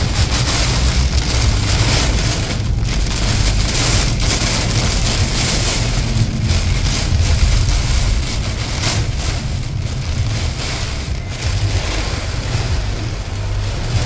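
Heavy rain pelting the car's windshield and roof, heard from inside the moving car, with a steady low rumble underneath.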